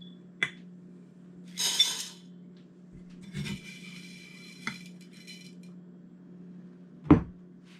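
Dried black elderberries being measured out in the kitchen: utensils clink a few times and two short rustling pours are heard. A loud knock comes near the end as something is set down hard.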